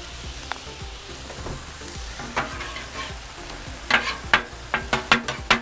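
Ground pork and shredded cabbage sizzling on a hot flat-top griddle, with metal spatulas scraping and chopping against the steel plate. About four seconds in, the spatulas start clanking sharply on the griddle several times a second.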